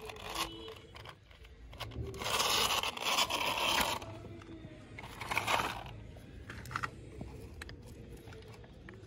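Scraping and rustling of plastic toy vehicles being handled and moved on sandy dirt: a long scrape from about two to four seconds in and a shorter one a little after five seconds, with scattered light clicks.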